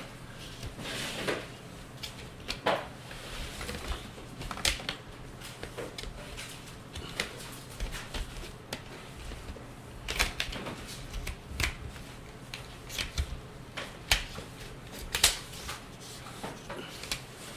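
Irregular sharp plastic clicks and snaps as the plastic screen bezel of an Acer E5-573T laptop is pried loose, its clips popping free one after another.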